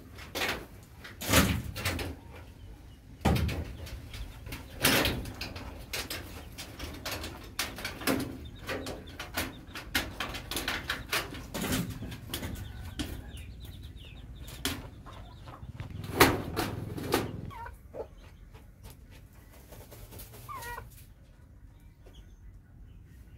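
Chickens clucking while they scratch and peck in dry, stony dirt, with a run of sharp scratching and knocking noises through the first two-thirds. Near the end it quietens to a few short calls.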